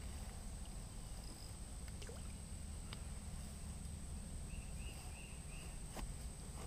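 Steady low rumble of wind on the microphone, with a few faint clicks and a thin steady high tone. About four and a half seconds in comes a run of four short, faint high chirps.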